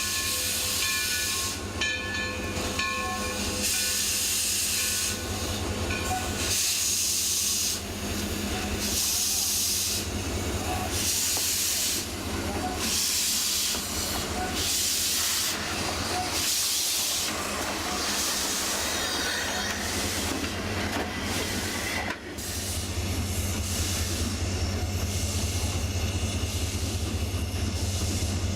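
Alco 2-8-0 Consolidation steam locomotive working, with steam exhaust hissing in pulses about once a second. About 22 seconds in, this gives way to a steady rumble and hiss.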